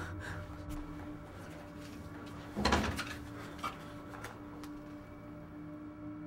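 A wooden desk drawer is pulled open with a short, loud scrape about halfway through. A few small knocks and clicks follow as things inside are handled.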